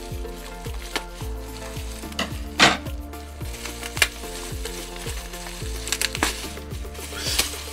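Bubble wrap crinkling and crackling as hands peel it off a small plastic miniature, with sharper crackles about two and a half seconds in, at four seconds, and again near the end. Background music with a steady beat runs underneath.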